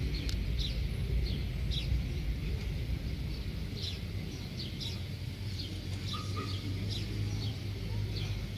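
Small birds chirping: short, downward-sliding chirps repeated a few times a second, over a low steady rumble.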